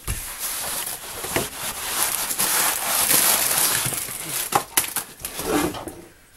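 Rustling, scraping and crackling of things being handled and shifted on a soaked kitchen floor, with a few sharp knocks, dying down near the end.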